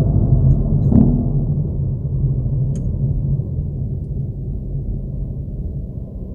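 Hyundai Veloster N's turbocharged 2.0-litre four-cylinder engine and exhaust heard from inside the cabin: a low rumble that fades as the car slows in traffic. A single sharp knock about a second in.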